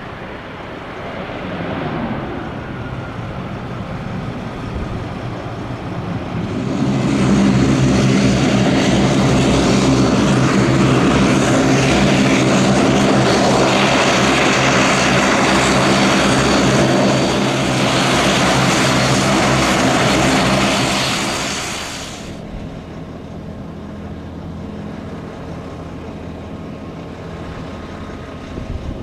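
Bombardier Q400's Pratt & Whitney PW150A turboprops running as it taxis close past, a steady propeller drone with a low hum and a turbine hiss. It grows loud about a quarter of the way in and cuts off abruptly about two-thirds through, leaving a quieter, steady distant turboprop drone.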